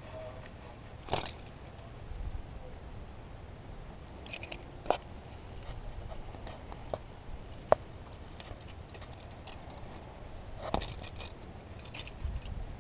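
Metal fishing-lure hardware clinking and jingling in the hands while a caught bass is unhooked, in scattered short rattles with a few sharp clicks: about a second in, around five seconds, near eight seconds and again near the end.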